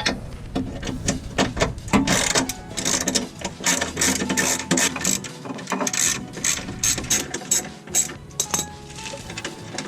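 Hand ratchet wrench clicking in quick, irregular runs as fasteners are worked on the truck's front end.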